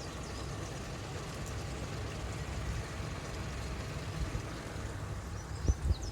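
Steady low rumble of a boat's engine running, with a few short knocks near the end.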